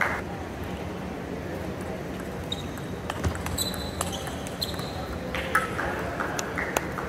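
Table tennis rally: the celluloid ball clicks sharply and irregularly off the table and bats, beginning about two and a half seconds in, with a few short high squeaks among the hits.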